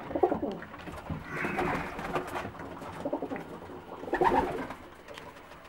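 English tippler pigeons cooing in a small wooden loft, several separate coos with short pauses between them.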